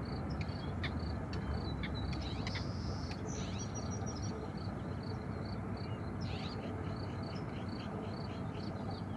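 Forster's tern calling in short notes, some single and some in quick little runs, over a steady low background rumble.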